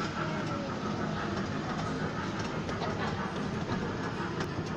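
Small shopping-mall ride-on train running, a steady low rumble of its wheels and motor heard from inside its wooden carriage.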